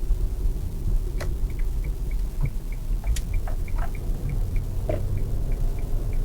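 Ford Focus Mk1 engine running with a low rumble, heard from inside the cabin on a test drive after a new crankshaft position sensor was fitted to cure a misfire. From about a second and a half in, the turn-signal relay ticks steadily at about three ticks a second, with a few odd clicks.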